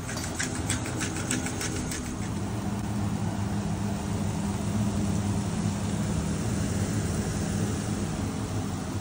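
Turkey strips and diced peppers frying in a non-stick pan, with a wooden spoon clicking against the pan a few times in the first two seconds. A steady low mechanical hum runs underneath and is the loudest part.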